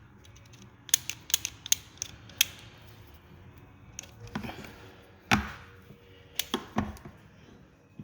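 Small hand tools and parts being handled during wiring work: a quick run of sharp clicks about a second in, then a few louder snaps and knocks later on.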